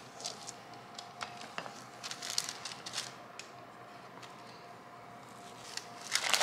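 Parchment paper crinkling and rustling under a rolling pin as gingerbread dough is rolled out on it, in irregular crackly bursts, with a louder burst near the end.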